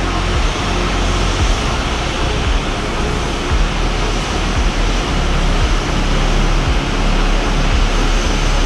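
Steady jet engine roar of a Boeing 737-800 with CFM56-7B turbofans, with wind buffeting the microphone in short low thumps.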